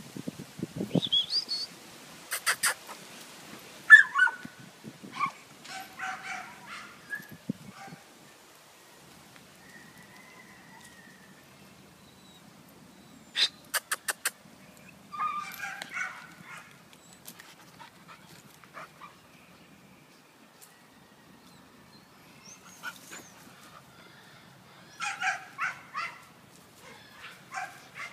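American Pit Bull Terriers barking and yipping in short bursts, with quiet stretches between. Two quick runs of sharp clicks are heard as well, one early on and one around the middle.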